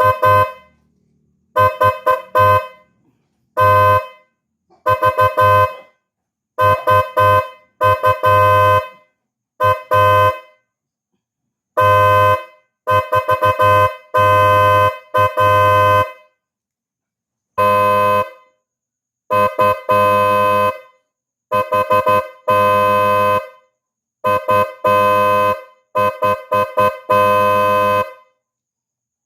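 PIAA sports car horn sounding in a long series of blasts: short taps, often in quick groups of two or three, mixed with blasts held about a second, with silent gaps between.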